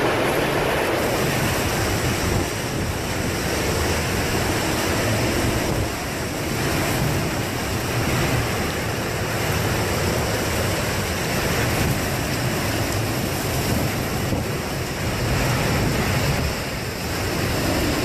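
Hurricane-force wind blowing through trees with driving rain, a steady heavy rush, with the wind also buffeting the microphone.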